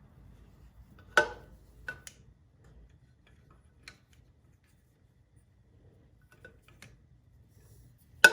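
Metal hand tools knocking and clinking against metal engine parts: a sharp knock with a brief ring about a second in, a few lighter clicks, and another sharp knock near the end.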